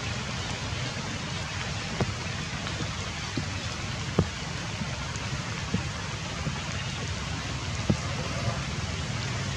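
Light rain falling in a steady hiss, with a few louder single drops striking close by, about two, four and eight seconds in.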